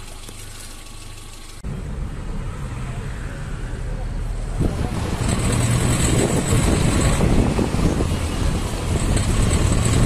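Renault Clio 2 engine and road noise while the car pulls away under acceleration, heard from inside the car. The noise jumps up suddenly about a second and a half in and grows louder again near the middle. This is the owner's recording of the rattle under acceleration, which the mechanic puts down to pinking (detonation) from poor-quality petrol and not to an engine fault.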